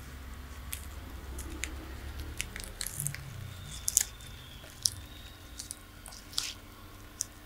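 Tortoise biting and chewing food: irregular short, crisp snaps and crunches, several a second, with a few louder bites near the middle.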